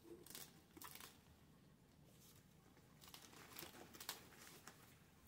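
Faint crinkling and rustling of crumpled brown packing paper as kittens shift about in a cardboard box, in two short spells of light crackles.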